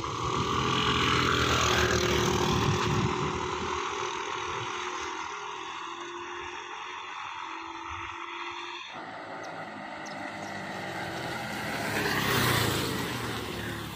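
Two single-cylinder 125 cc scooters, a Honda Activa 125 and a Suzuki Access 125, accelerating hard from a standstill side by side, their engine note fading as they pull away. After a cut about nine seconds in, one scooter rides toward and past close by, growing louder near the end.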